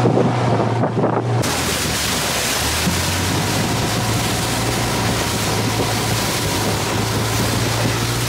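Engine of a Thai longtail boat running steadily under way, a low drone beneath wind rushing over the microphone and water noise. The wind hiss jumps much louder about a second and a half in.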